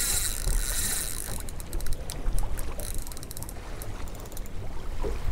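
Wind and water noise around a small drifting boat, a steady low rumble, with runs of fast, fine clicking from about a second and a half in.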